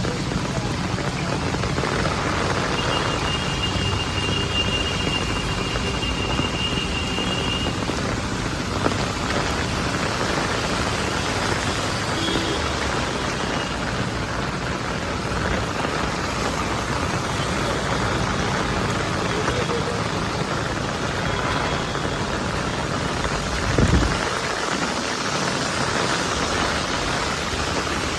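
Steady hiss of rain falling, with one short low thump near the end.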